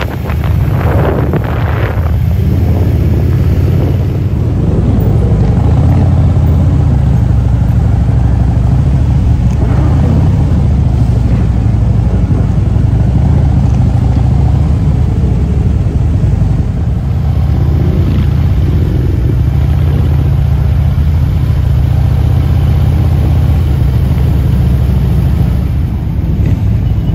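Motorcycle engines running steadily, heard from on board one bike riding in a group of motorcycles.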